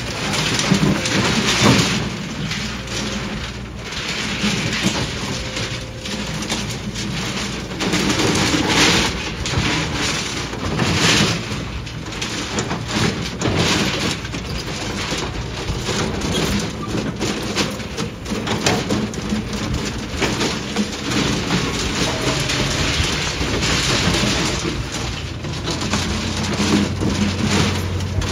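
Hydraulic excavator's diesel engine running under load while its bucket presses into and breaks up reinforced concrete slabs, with continual crunching, cracking and scraping of concrete rubble.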